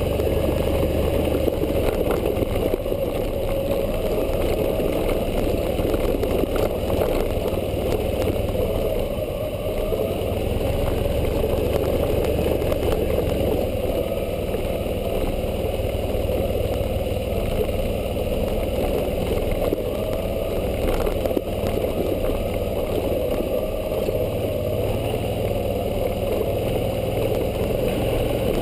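Suzuki V-Strom 650's V-twin engine running steadily while riding a dirt trail, with no big rise or fall in revs.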